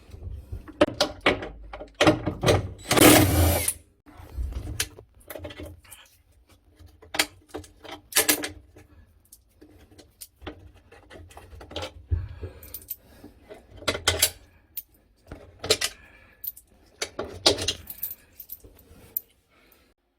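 Irregular clinks, knocks and scrapes of tools and parts being handled while a top-loading washing machine is taken apart, with one longer scraping noise about three seconds in.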